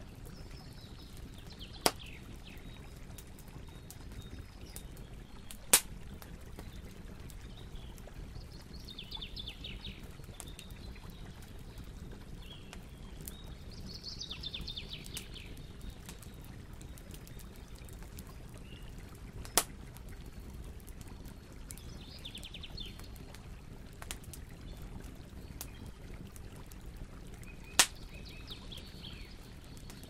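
Bonfire crackling over a steady low rush, with four sharp pops from the burning logs. A bird sings five short descending trills now and then.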